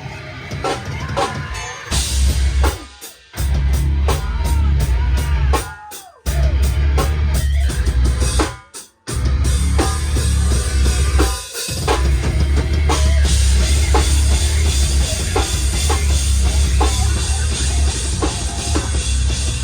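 Hardcore band playing live, loud: a drum kit with a heavy bass drum under a dense full-band wall of sound. The riff is stop-start, with the whole band cutting out abruptly for a moment four times before crashing back in.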